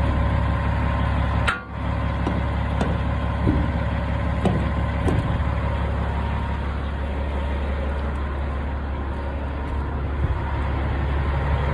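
Peterbilt semi truck's diesel engine idling steadily, with a few light knocks, as the tractor is coupled to a hopper trailer.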